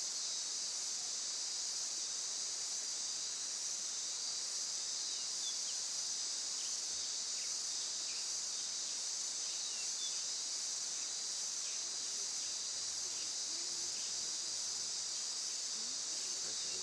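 Steady high-pitched chorus of crickets or cicadas in forest, with a few faint short bird chirps over it.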